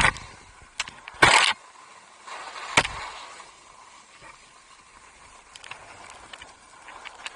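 Skis scraping over snow in short hissing bursts, once at the start and again about a second in, with a sharp knock just before three seconds; then a soft steady hiss.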